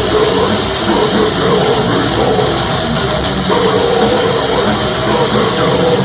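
Death metal band playing live: heavily distorted electric guitars and a drum kit at full volume.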